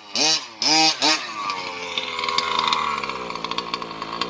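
Small two-stroke engine of a gas-powered RC truck revved in three quick blips, then dropping back to a steady idle.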